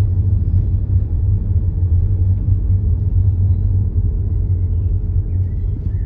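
Steady low rumble of a car heard from inside the cabin as it drives slowly along a narrow lane: engine and tyre noise.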